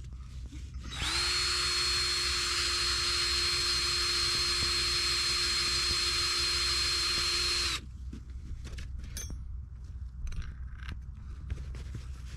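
Electric hand drill boring a starter hole in the ice for a shelter's screw-in ice anchor: the motor spins up about a second in, runs at a steady whine for about seven seconds, then stops abruptly. Light knocks and handling follow.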